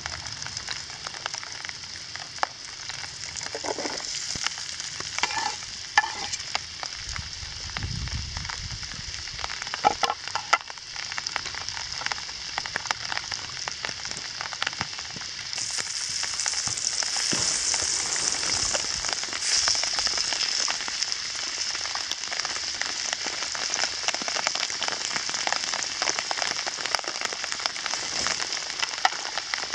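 Butter and chopped onions sizzling in a frying pan over a small wood stove: a steady frying hiss, with a few knocks in the first ten seconds. The sizzle gets louder and brighter for a few seconds past the middle.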